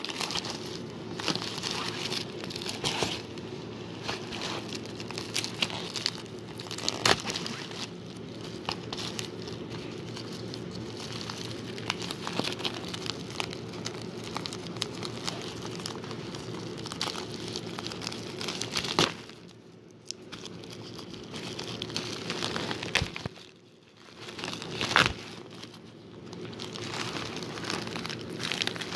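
Plastic packaging crinkling and crackling as hands unwrap a tablet case, in a dense irregular stream with two short lulls past the middle.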